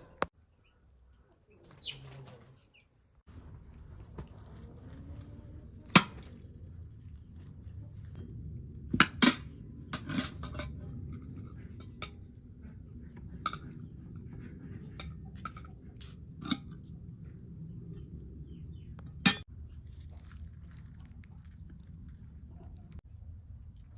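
Dishes and cutlery clinking now and then, with about eight sharp separate clinks spread through the stretch, over a steady low rumble that starts a few seconds in.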